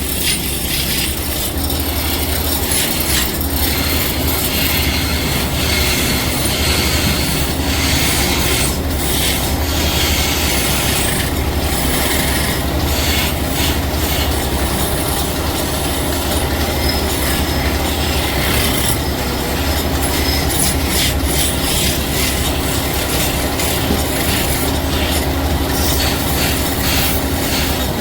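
A woodworking machine running steadily with a low hum, with irregular scraping and rubbing over it.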